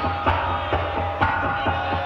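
Live band playing amplified music: the drum kit keeps a steady beat about twice a second under held chords and a strong bass.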